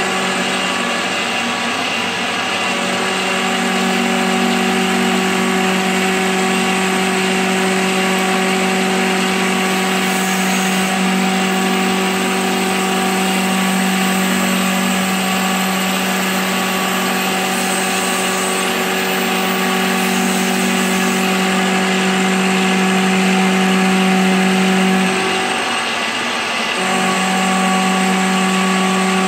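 End mill on a CNC milling machine cutting a circular pocket in cast iron at 2500 RPM, a steady pitched machining hum with several tones. The main tone drops out briefly near the end and then comes back.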